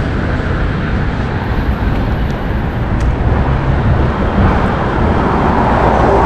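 Road traffic on a city street, a steady rumble of passing vehicles, with one growing louder near the end.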